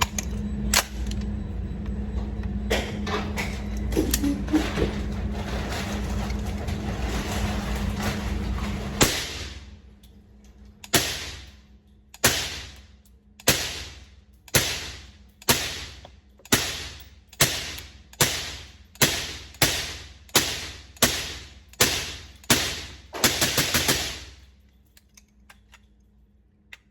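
Suppressed MK57 semi-automatic rifle firing 5.7x28 mm Hornady Critical Defense 40-grain rounds: a string of sharp shots, each with a short ringing tail, about one a second and quickening near the end, the rifle cycling through the magazine without a stoppage. Before the shooting starts, about nine seconds of steady noise with a few clicks.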